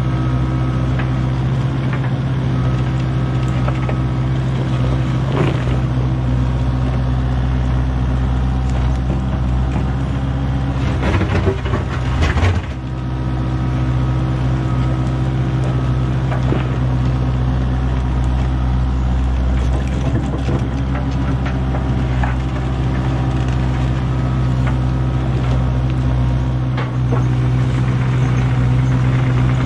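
Kubota KX057-4 mini excavator's diesel engine running steadily under load while its bucket pushes and levels soil, with a short clatter of scraping and stones a little before halfway.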